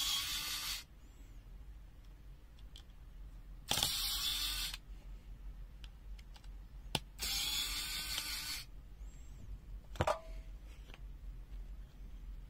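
Three bursts of whirring, rasping mechanical noise, each about a second long and a few seconds apart, then a single sharp click about ten seconds in.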